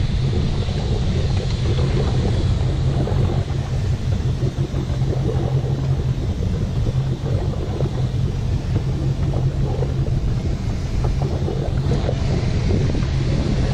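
An engine running steadily with a low hum, with wind buffeting the microphone.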